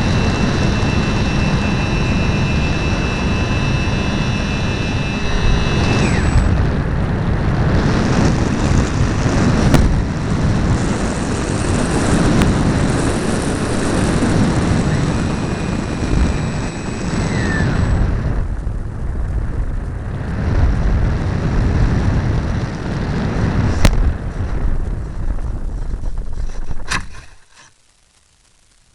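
Airflow and motor noise on the onboard microphone of an RC model plane in flight: a steady high motor whine over heavy rumbling for about six seconds, then the whine stops and rough, gusty wind buffeting takes over. Near the end there is a click and the sound drops off sharply.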